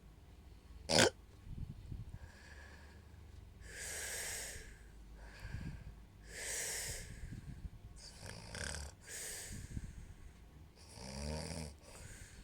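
A woman snoring in her sleep: long, hissy breaths about every one to two seconds, the last one near the end with a buzzing rattle. A single sharp click about a second in is the loudest sound.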